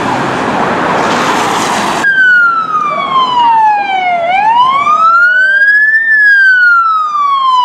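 Police siren on a slow wail. It opens with about two seconds of loud rushing noise, then its pitch falls for about two seconds, climbs for about two seconds and starts falling again.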